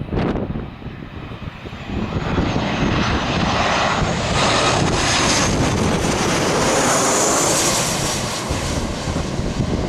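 Airplane engines on a landing approach, swelling about two seconds in and staying loud through the middle with a high whine, then easing slightly. Gusty wind buffets the microphone at the start.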